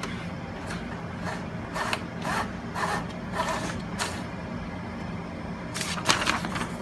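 Scattered clicks and rustles from handling a Brother GX-6750 daisy wheel electronic typewriter and its paper, irregular at first, with a quick cluster of clicks near the end.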